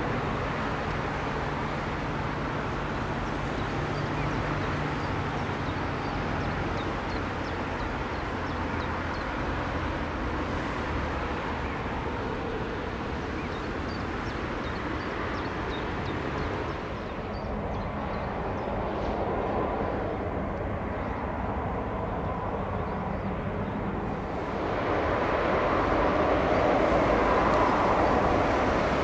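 Airbus A350-900's Rolls-Royce Trent XWB turbofan engines running at low taxi power as the airliner lines up on the runway: a steady rush of jet noise that grows louder near the end.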